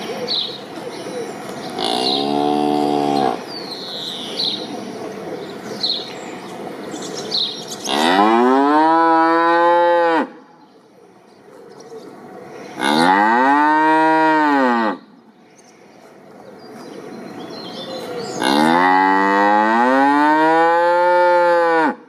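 A bovine lowing: four moos, the first short about two seconds in, then three long drawn-out calls that rise and fall in pitch, each two to three seconds long. Small birds chirp through the first several seconds.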